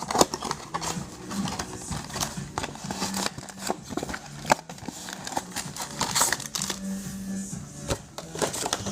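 Foil trading-card pack wrappers crinkling and tearing, with cards being handled, a busy run of small crackles and clicks.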